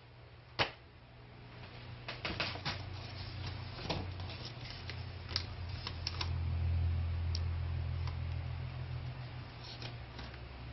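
Scattered light clicks and taps of small hard pieces being handled, over a low hum that swells in the middle and then eases off.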